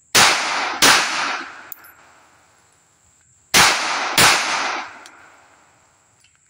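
Two two-shot strings from a Smith & Wesson 3953 double-action-only 9mm pistol: two shots about two-thirds of a second apart, then another pair about three seconds later. Each pair trails off in echo.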